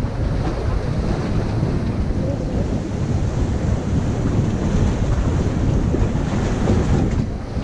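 Wind buffeting the microphone over the steady wash of surf against jetty rocks.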